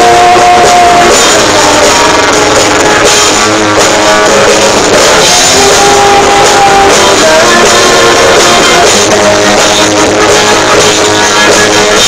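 Live rock band playing loudly: a woman singing lead over electric guitars and a drum kit.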